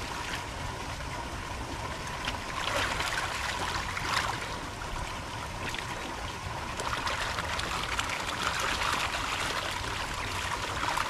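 Water sloshing and trickling as a woven bamboo fish trap is worked and lifted in shallow water, water running off it, with louder splashes swelling now and then.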